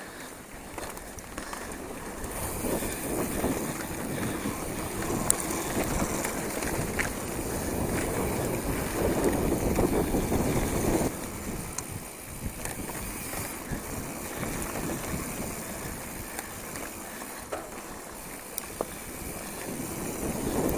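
Wind buffeting the camera microphone and the tyres of a hardtail mountain bike rolling over loose dirt on a fast descent, with occasional clicks and rattles from the bike. It is loudest about nine to eleven seconds in, then drops suddenly.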